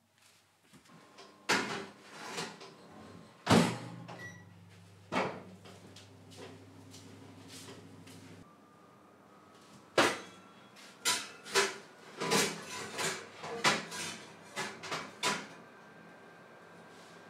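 A Sharp Healsio countertop steam oven's door being opened and shut and a metal tart pan going in and coming out, as a series of sharp knocks and clicks. The oven runs with a steady low hum for about five seconds before it cuts off, and there is a quick flurry of clicks and knocks near the end.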